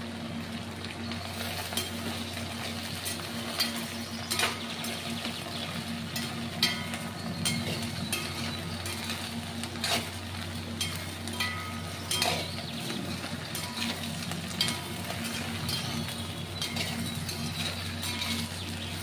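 Cooking in a metal pan: food frying while a spoon stirs and knocks against the pan now and then, over a steady low hum.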